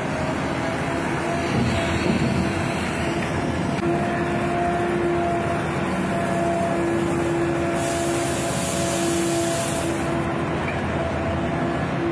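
Port cargo-handling cranes working grab buckets over a ship's hold: steady engine-and-machinery drone with a held whine. A high hiss lasts about two seconds past the middle.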